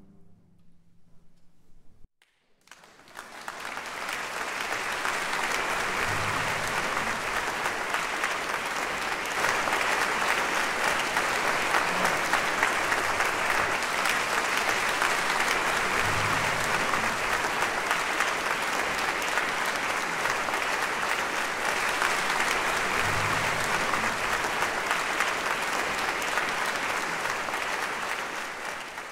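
The orchestra's last chord dies away into a brief hush. About three seconds in, the audience breaks into sustained applause that holds steady and tails off at the very end.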